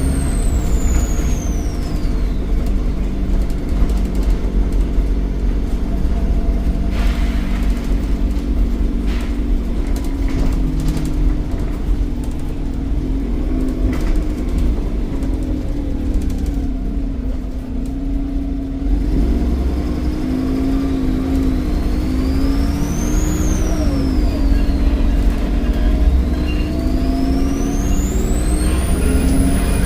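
Volvo D7E 7.1-litre diesel engine of a Volvo B7RLE bus running under way, with a steady drone and a high turbocharger whistle that rises and falls in pitch with the throttle. The whistle falls away at the start, rises and falls briefly about two-thirds through, and climbs high again near the end.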